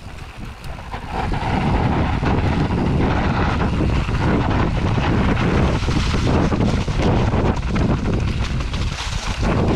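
Wind rushing over the camera microphone, with tyre roar and rattling knocks from a Canyon Torque AL 6.0 mountain bike riding fast over rough ground. The rush swells about a second in and stays loud.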